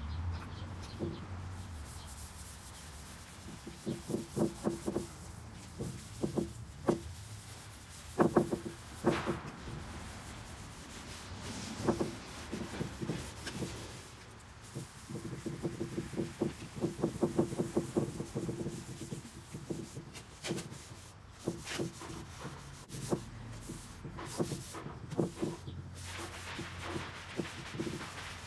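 Cloth rag rubbing stain into a wooden tabletop, in runs of quick back-and-forth strokes with short pauses between runs.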